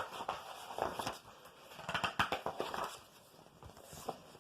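Soft, irregular rustling and crackling of paper as a picture book's pages are turned and handled.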